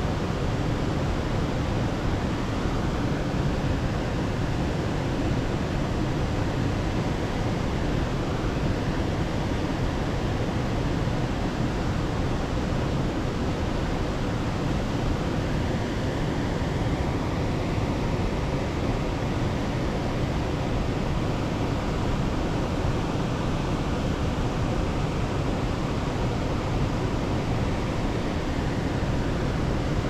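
Waterfall: a steady rush of falling water, even and unbroken.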